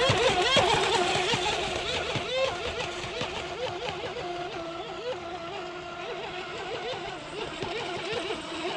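Brushless electric RC speedboats running fast across choppy water: a high motor whine whose pitch warbles up and down as the hulls skip over the waves, gradually fading as they pull away.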